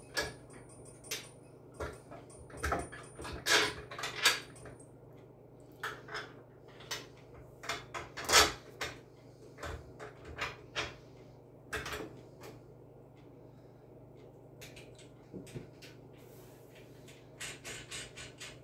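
Irregular clicks and knocks of plastic and metal parts as a wheel is fitted to the base of a chicken plucker during assembly, with the loudest knock about eight seconds in.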